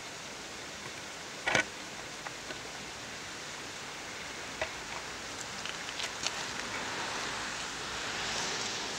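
Steady outdoor background hiss, with one sharp click about one and a half seconds in and a few fainter ticks later on.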